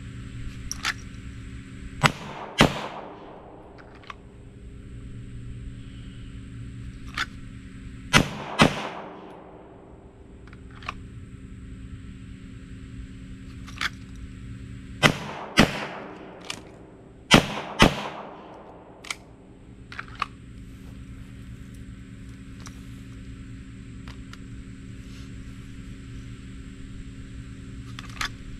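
Sig Sauer P320 Spectre Comp 9mm pistol fired in quick pairs: four double taps, the two shots of each pair about half a second apart, with fainter single pops in between.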